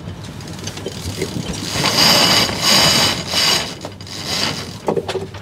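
Yacht sheet winch being wound in, its pawls ratcheting in about four quick bursts as the headsail sheet is trimmed after a tack.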